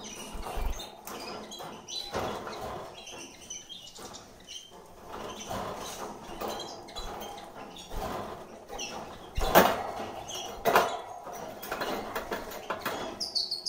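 Caged brown canaries giving scattered short chirps, with light scrapes and two louder knocks in the wire cage about nine and a half and eleven seconds in.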